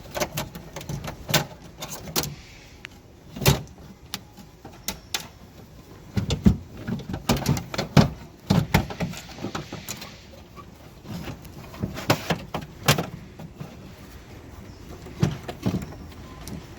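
Irregular clicks, knocks and rattles of hard parts being worked loose inside a Mercedes-Benz CLS (W219) front door, as the door handle frame is pried and pulled out of the door shell.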